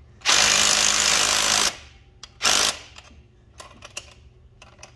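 DeWalt 20V cordless impact driver with a socket running down a bolt: one burst of about a second and a half, then a second short burst about a second later as the bolt snugs tight, followed by light clicks of the tool and wrench.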